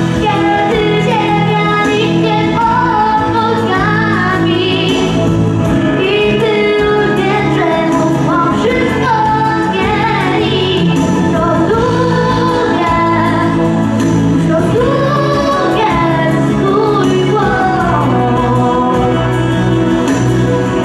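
A young girl singing a melody into a handheld microphone over steady instrumental accompaniment, amplified through the stage sound system.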